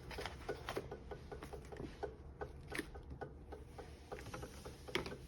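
Laminator running: a rapid run of small mechanical clicks and ticks, uneven in spacing, over a low steady hum.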